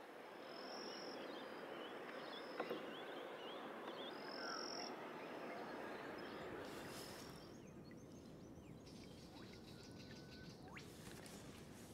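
Chorus of frogs and other wildlife calling, made of many short overlapping calls, with a high thin whistle every couple of seconds. The chorus drops away about seven seconds in, leaving quieter background sound.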